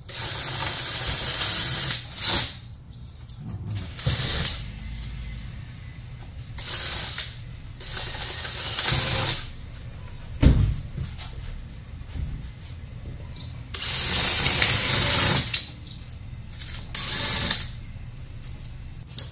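Power drill run in a series of short bursts, boring a hole down through pink foam insulation board glued to the module. There is a single low thump about halfway through.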